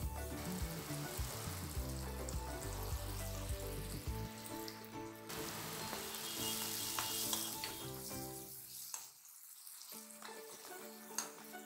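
Chopped tomatoes and green chillies sizzling in hot oil in a nonstick pan, stirred and scraped with a steel spatula. The sizzling dies down about nine seconds in.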